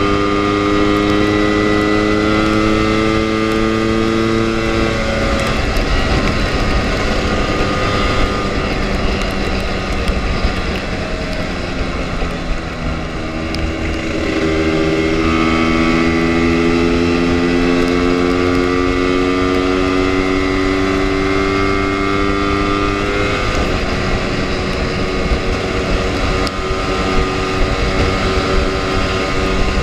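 Lambretta scooter's two-stroke single-cylinder engine running under way, its pitch climbing steadily as it pulls, dropping off about five seconds in, then climbing again from about halfway before easing near the end. Wind noise on the microphone underlies it throughout.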